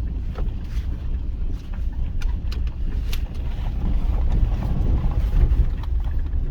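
Mitsubishi Pajero iO driving along, heard from inside the cabin: a steady low rumble of engine and road noise, with a few light ticks now and then.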